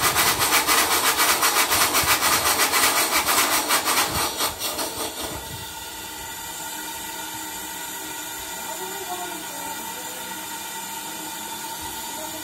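The steam engine of a replica 1802 Trevithick locomotive running with rapid, even exhaust beats that die away about five seconds in, leaving a steady hiss of steam.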